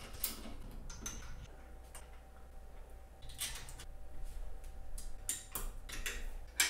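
Scattered light clicks and taps of small metal hardware being handled by hand: a bolt, washer and the eye-bolt end of a brace rod being fitted to a 3D printer's metal frame, with brief rustles between them.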